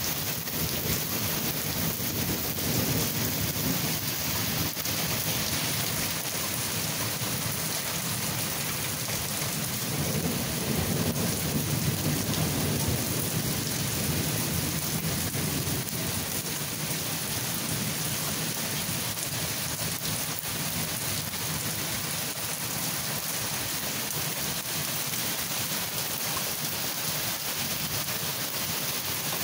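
Steady rain falling during a thunderstorm, with a low rumble of rolling thunder swelling in the middle.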